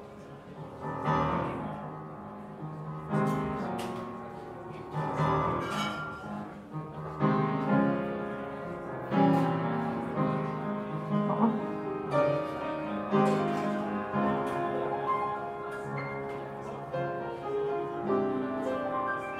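Live jazz combo playing: piano chords and lines over double bass, with occasional sharp drum or cymbal strokes.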